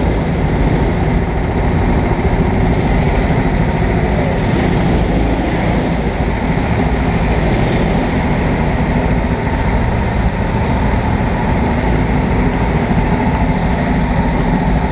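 Petrol go-kart engines running steadily in the pit lane: a continuous loud rumble with no change in pace.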